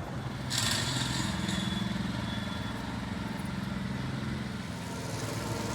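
Small petrol engine of lawn equipment running steadily, with a rush of hiss that comes in about half a second in and fades.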